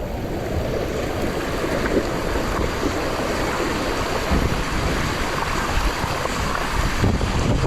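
Strong hurricane wind buffeting the camera microphone in a loud, steady rush, with the low rumble of gusts on the mic.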